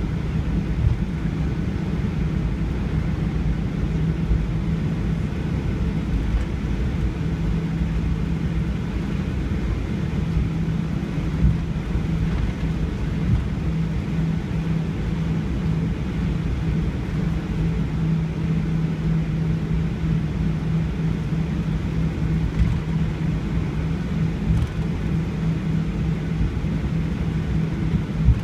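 Steady low rumble of an airliner's cabin, heard from inside: the engines and airflow make a constant drone with a steady low hum running through it.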